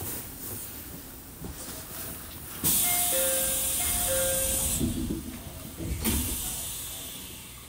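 Inside a JR 313 series train: a sudden burst of air hiss, with a two-note chime sounding twice, as the doors open. A second, shorter hiss with a low thump comes about six seconds in, over a low rumble that fades.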